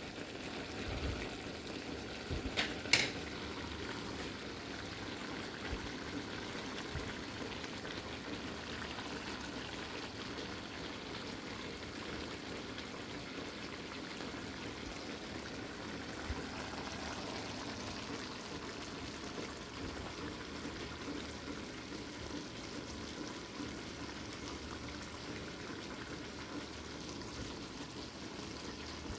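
Chicken feet adobo simmering in a pot, a steady bubbling hiss of the sauce cooking down. A couple of sharp knocks come about three seconds in.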